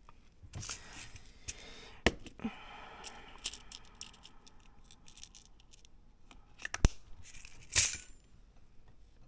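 Small hard plastic model-car parts being handled and fitted together, with scattered sharp clicks and short rustles; the two loudest clicks come about 2 and 7 seconds in.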